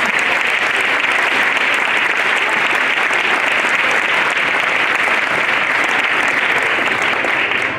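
Audience applauding, steady and loud, after a correct guess of who is under the mask.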